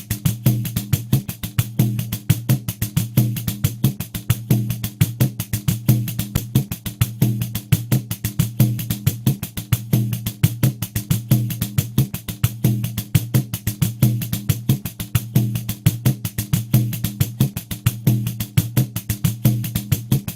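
Pandeiro playing a steady groove at 90 beats per minute: rapid, even jingle strokes over a low thump of the drumhead, repeating without change.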